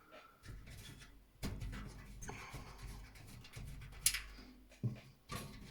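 Handling noise from a Corsair Carbide Spec-05 PC case being moved about: faint scraping and rubbing with a few light knocks, the sharpest about four seconds in.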